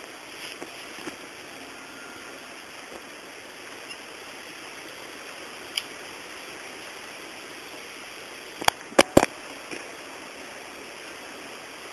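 Steady outdoor hiss, with three sharp cracks in quick succession about nine seconds in: airsoft gun shots.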